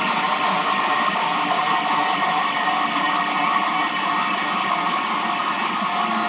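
Steady, loud droning noise with several held tones sounding together, unbroken and without a beat: a drone from the soundtrack.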